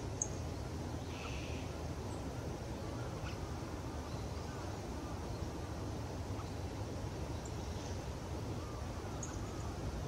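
Steady low outdoor background rumble, with a few faint, very short high chip calls from a small songbird, a couple near the start and several near the end.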